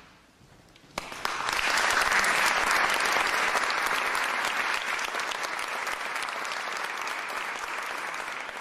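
Applause from an audience, a dense patter of many claps that starts suddenly about a second in, is loudest soon after and slowly fades.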